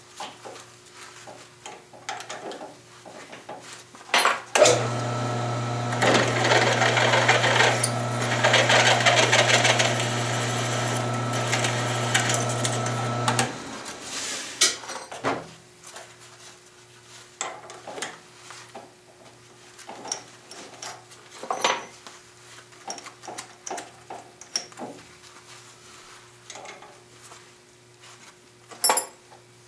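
Drill press starting about four seconds in and running for about nine seconds with a steady hum, its bit cutting into 4140 steel plate. Before and after it, small metallic clicks and clinks as the chuck, bit and chips are handled.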